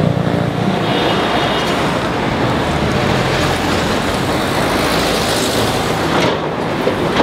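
A motor vehicle passing close by amid street traffic noise: a steady wash of engine and road noise whose upper part falls away about six seconds in.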